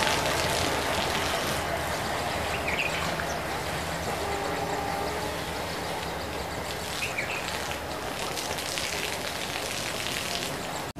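Passenger train rolling away on the rails, a steady rumble and rush of wheels on track that slowly eases as the last coach recedes. Two short high chirps, about a quarter of the way in and again about two-thirds through.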